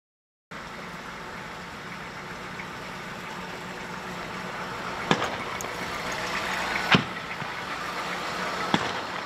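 Armored Humvee's diesel engine running steadily close by, with three sharp gunshots: one about halfway through, another two seconds later and a third near the end.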